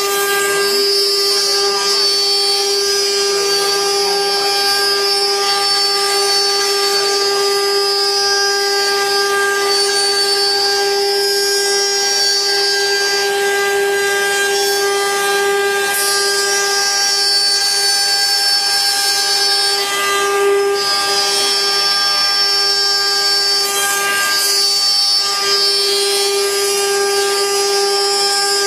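CNC wood carving router running: a steady whine from its spindle, with higher tones above it that keep stepping up and down in pitch.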